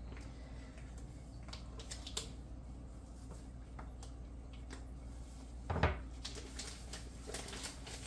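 Plastic packaging being cut and pulled off a whole raw chicken with a fillet knife: faint scattered crinkles and clicks, with one louder knock about six seconds in.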